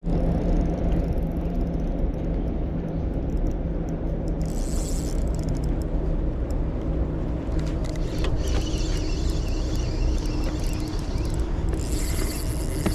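Steady low engine-like rumble with a continuous hum, with short high hissy bursts about four seconds in and again near the end.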